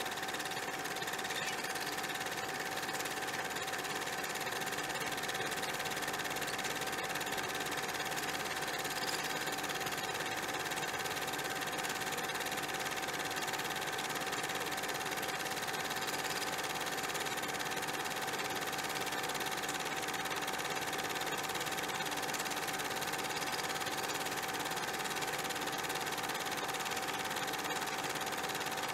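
Steady, unchanging mechanical whirr of a small machine, with a constant high whine running through it.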